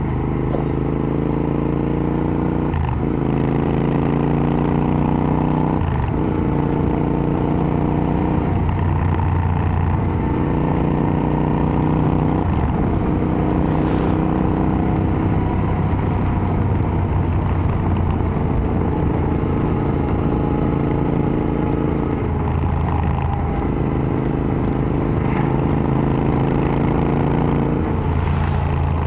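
Royal Enfield Interceptor 650's parallel-twin engine through an AEW TE 102 aftermarket exhaust, under way on the road. The engine note climbs and then drops at a gear change every few seconds, holds fairly steady for a stretch in the middle, and drops twice more near the end.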